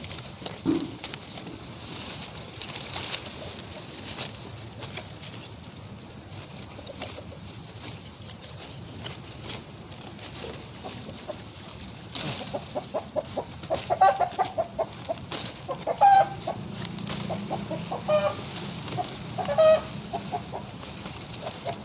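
Chickens clucking: a run of short, repeated calls that starts a little past the middle, with a few louder calls among them, over faint scattered clicks.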